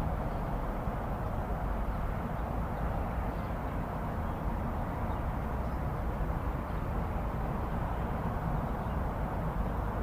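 Steady urban ambience outside an apartment window: a continuous low hum of distant road traffic, with no single event standing out.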